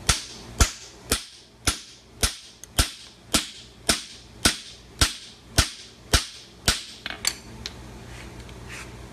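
Hammer striking a farrier's fuller to crease a horseshoe: about a dozen sharp, ringing steel-on-steel blows at about two a second. They stop about seven seconds in, with a couple of lighter taps just after.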